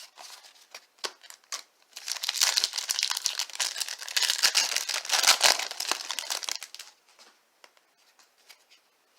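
Baseball card pack wrapper being torn open and crinkled: a dense crackling rustle for about five seconds in the middle, with lighter clicks of handling before and after.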